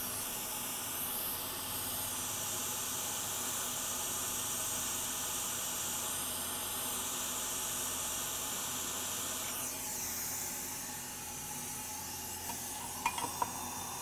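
Hot air rework station blowing a steady hiss on the board while the JHL6340 Thunderbolt controller chip is desoldered and lifted off. The hiss falls away about ten seconds in, and a few light clicks follow near the end.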